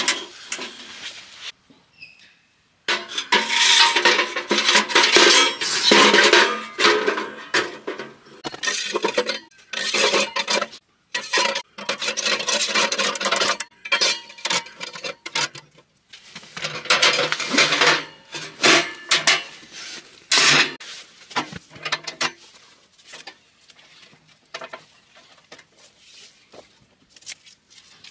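Metal utensils scraping and clinking against cookware in irregular bursts, busiest in the first half and thinning to scattered clinks near the end.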